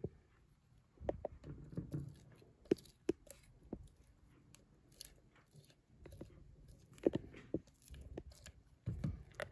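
A spatula stirring and scraping thick strawberry ice cream base in a glass blender pitcher: soft squelches and scrapes with irregular taps against the glass, louder about a second in, around seven seconds and near the end.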